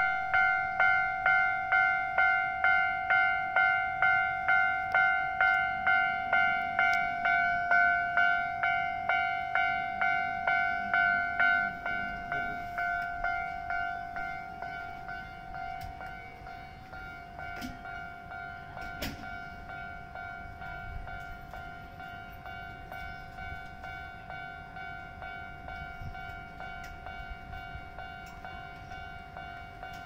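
Railway level crossing warning bell ringing at about two strikes a second. It is loud for the first twelve seconds, then carries on more quietly.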